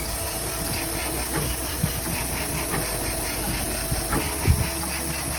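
PCB depaneling router machine running: a steady high hiss over a low hum, with light knocks and one louder thump about four and a half seconds in.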